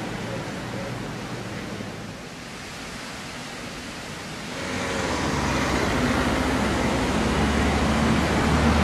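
Street traffic noise, then from about halfway in a city bus draws near, its engine running with a low hum that grows steadily louder.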